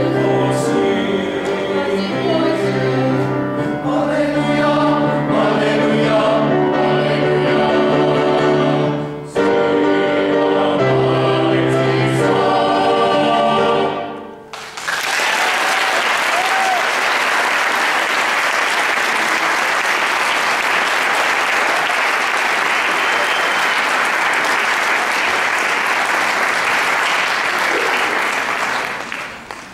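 High school men's choir singing with grand piano accompaniment, the song ending on a held chord about halfway through. The audience then applauds, fading out near the end.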